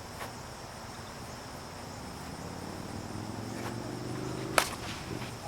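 Steady high chirring of crickets or other insects. A low hum rises in pitch over a second or so, and about four and a half seconds in comes a single sharp crack, the loudest sound.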